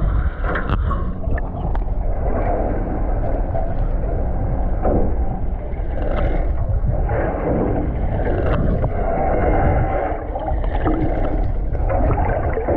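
Water sloshing and gurgling against the hull of an offshore fishing boat, with wind on the microphone: a loud, irregular rush.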